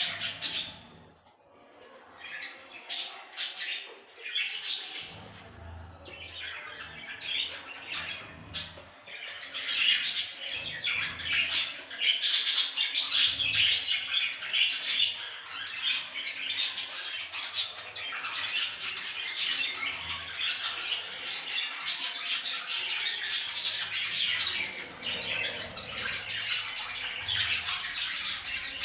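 Several budgerigars chattering: a dense, overlapping stream of short chirps and warbles that thins briefly about a second in and grows busier from about ten seconds on.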